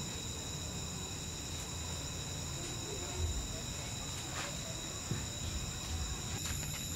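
Night chorus of crickets trilling steadily at several high pitches, with a few faint clicks in the middle.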